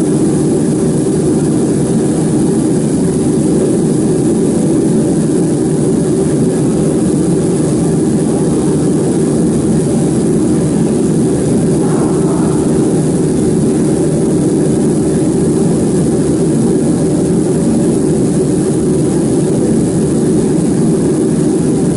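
Laser marking machine running with a steady, loud fan-like drone. A faint short tick comes about halfway through.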